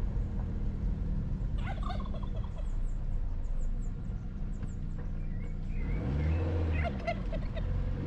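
Domestic fowl calling with rapid, gobbling series of notes, once about two seconds in and again from about five to seven seconds, over a steady low rumble.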